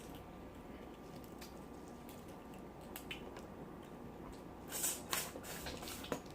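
Faint wet squishing and smacking of someone eating a butter-sauced seafood boil by hand, with scattered small clicks and a short cluster of louder wet smacks about five seconds in, then one more just after six seconds.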